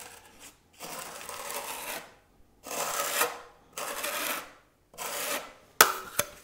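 Steel spatula scraping across half-dried travertine decorative plaster in about five separate strokes, a rasping sound as it tears scratches into the drying top coat. A few sharp clicks follow near the end.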